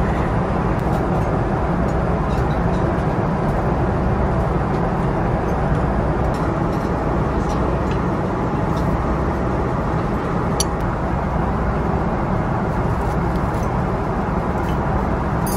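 Steady roar of an airliner cabin in flight, deep and even, with a light clink of cutlery on a plate about ten seconds in.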